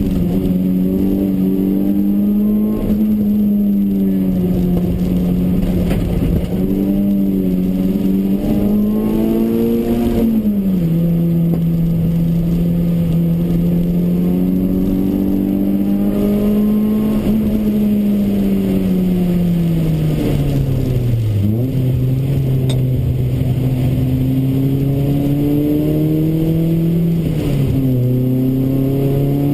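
Toyota Corolla AE93's 20-valve 4A-GE four-cylinder engine heard from inside the cabin, running hard on track with road and tyre noise underneath. Its note holds steady, drops sharply about ten seconds in, then dips low and recovers about two-thirds of the way through and again near the end.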